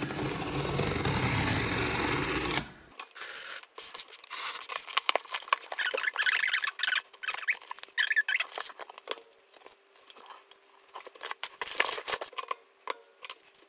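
A craft knife slicing through the packing tape of a cardboard box, a steady scratchy noise for nearly three seconds that stops abruptly. Then cardboard flaps and crumpled kraft paper packing crackle and rustle in many small clicks and crinkles as the box is unpacked.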